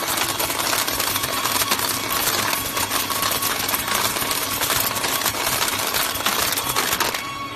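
Belt-type mineral colour sorter running, with stone granules pouring off its chute into a plastic crate: a dense, steady rattle of many small clicks. The rattle thins out near the end.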